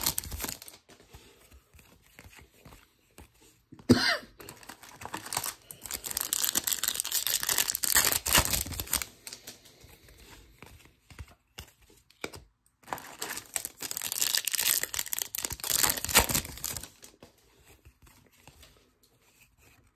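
Foil wrapper of a Topps Chrome baseball card pack crinkling and tearing open, then the stiff chrome cards being slid and flipped through by hand, in several bursts of rustling with quieter gaps between them.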